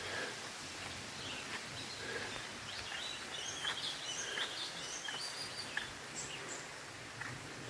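Small birds chirping in short, scattered calls over a steady outdoor hiss.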